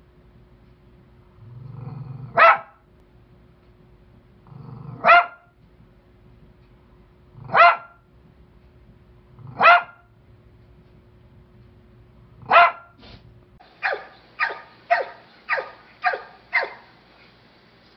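Dogs barking. First, single sharp barks about every two and a half seconds, some led in by a low growl, from a small dog at a glass door. Then, about two-thirds of the way in, a pit bull-type dog gives a quick run of six barks, about two a second.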